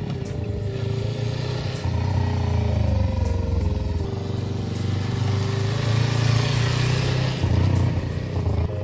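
Motorcycle engine running as the bike is ridden slowly, its note shifting up and down a few times with the throttle.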